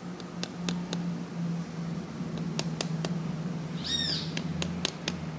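Light metallic clicks of pliers tapping on the thin metal seal ring of a car wheel hub bearing as it is worked down into place, in small groups of two to four quick taps. A steady low hum runs underneath, and a single short bird call comes about four seconds in.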